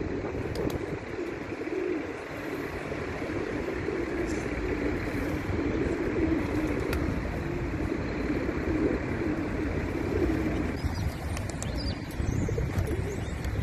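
Feral rock pigeons cooing: low, throaty, wavering coos that repeat and overlap, over a steady low background rumble.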